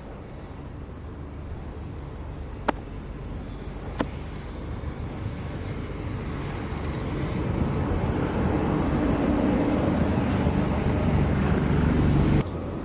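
A train approaching, its rumble and engine growing steadily louder, with two sharp clicks about two and a half and four seconds in. The sound cuts off abruptly shortly before the end.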